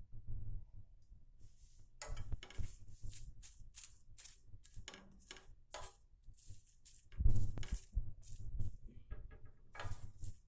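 Dry kala basa leaves crackling and rustling on a hot tawa as they roast down to ash and are stirred and pressed, an irregular run of sharp crackles and scrapes, with a louder knock about seven seconds in.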